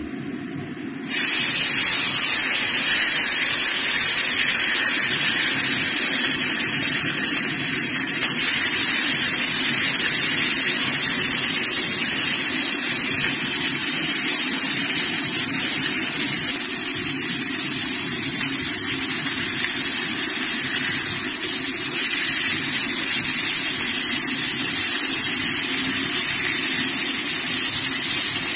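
Chicken pieces in a lemongrass marinade sizzling loudly on a hot ridged grill pan. The sizzle starts abruptly about a second in, as the meat goes onto the hot pan, then holds steady.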